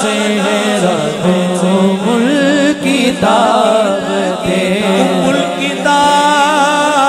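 A male naat reciter singing into a microphone, with no instruments: long held, ornamented notes with a wide wavering vibrato, and a steady low tone held beneath the voice.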